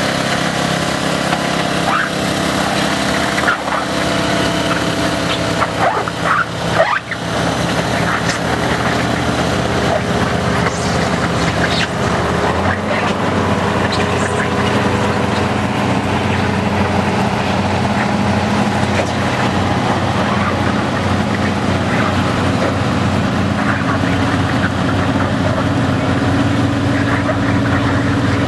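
Ford lawn tractor engine running steadily under load as it pulls a weight-transfer sled. About 12 seconds in the sound changes to a deeper, heavier engine, that of a full-size farm tractor driving onto the track.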